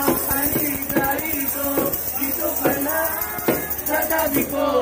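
Men singing a song together, accompanied by a jingling tambourine and sharp hand-drum strokes roughly twice a second.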